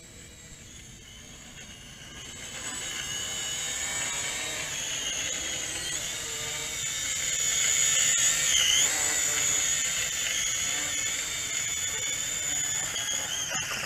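JJRC H11WH quadcopter's four small motors and propellers running with a high-pitched whine as it descends and comes in to land close by, growing louder a couple of seconds in. The whine briefly dips in pitch a little past the middle.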